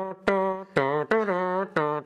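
A voice singing a short tune in several held notes that start abruptly, one after another, with pitch slides between some notes and a slight vibrato on the later ones.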